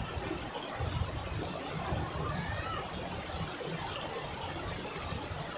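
Outdoor nature ambience: a steady high-pitched drone, with a few short chirps over it and a low rumble underneath.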